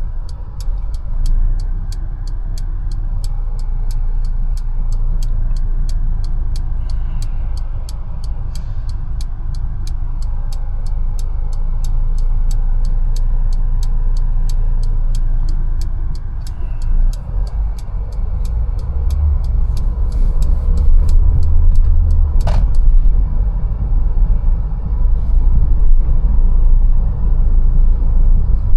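Mercedes-Benz A180 running through town, a steady low engine and road rumble, with a light regular ticking of about two ticks a second. The ticking stops with a single sharp knock about 22 seconds in, and the rumble then grows louder as the car pulls away.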